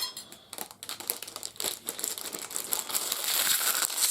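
Plastic packaging crinkling as it is handled, with scattered small clicks, the crinkling growing denser and louder in the last second or so.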